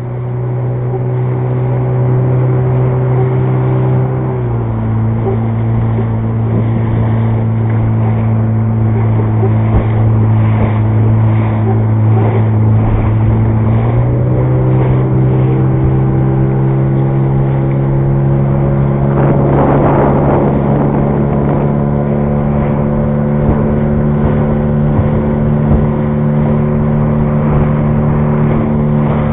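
Boat's outboard motor running steadily as the aluminium boat travels. Its pitch drops a little about four seconds in and rises again about fourteen seconds in, with a brief rush of noise near twenty seconds.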